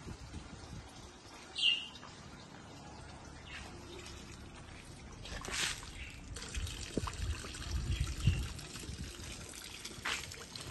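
Water pouring and splashing in a drain pit from a high-pressure drain-jetting hose, getting louder about five seconds in. A bird chirps once near the start.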